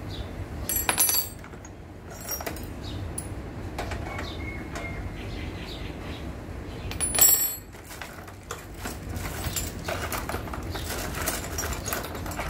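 Metal tools and small parts clinking and rattling as they are handled, with two louder clatters about a second in and about seven seconds in, over a steady low background rumble.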